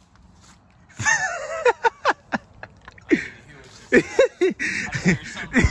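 Men's voices talking indistinctly from about a second in, with a few short clicks among them.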